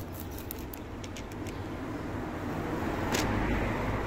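A motor vehicle passing, its low rumble building to loudest about three seconds in. Over it, a few crisp clicks in the first second and a half as a cat crunches dry kibble.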